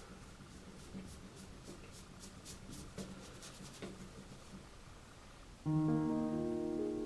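Soft, quick scratching of an oil paintbrush against canvas over faint room hiss. About five and a half seconds in, background piano music comes in suddenly with a held chord and becomes the loudest sound.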